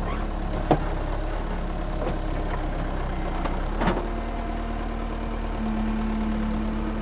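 A heavy construction machine's engine running steadily, with a few isolated knocks in the first four seconds. A steady hum comes in about four seconds in.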